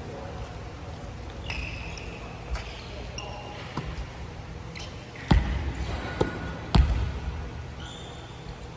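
A volleyball bounced on a wooden gym floor, two loud thuds about a second and a half apart past the middle, with a fainter knock between them and another hit right at the end. Players' voices call faintly in between.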